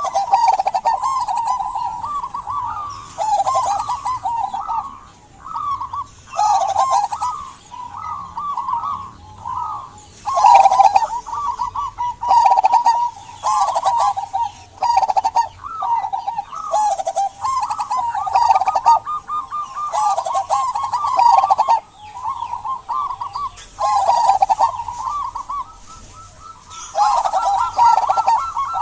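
Zebra dove (perkutut) cooing: phrase after phrase of quick, bubbling coos with only brief gaps between them, the full song of a bird in good singing form.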